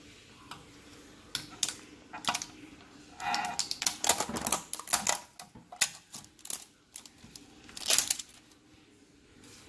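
Irregular sharp clicks and knocks of hard plastic being handled, with a brief squeak about three seconds in.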